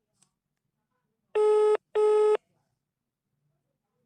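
Telephone ringback tone in a double-ring pattern: two short, buzzy tones in quick succession about a third of the way in, the sound a caller hears while the line rings.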